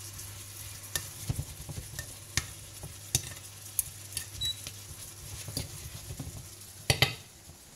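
Apple pieces sizzling in butter caramel in a non-stick frying pan as the apple juice reduces, with a metal utensil tapping and scraping against the pan as they are stirred. A louder clatter of the utensil on the pan comes about seven seconds in.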